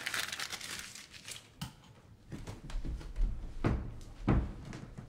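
A sheet of notebook paper being crumpled in the hand, a crackling rustle in about the first second. Then a few scattered soft knocks and thumps.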